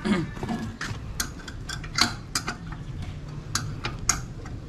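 Irregular light clicks and clinks, about eight of them, as wires and plastic connectors of a motorcycle wiring harness are handled and worked by hand, over a faint steady low hum.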